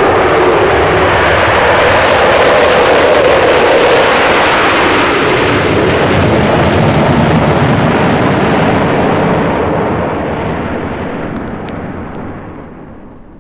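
Jet aircraft taking off: a loud, steady jet-engine roar that fades away over the last three seconds or so.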